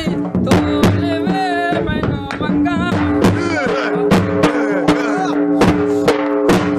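Music with a steady drum beat. A wavering melody plays over it, and a held note comes in about three seconds in.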